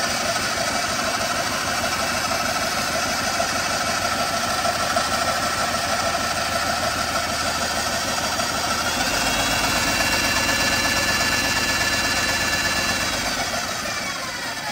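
Old one-speed Skil corded electric drill running under a rheostat, driving a homemade paint shaker that shakes a spray paint can. The motor whine rises in pitch about nine seconds in, then winds down near the end as the speed is turned down.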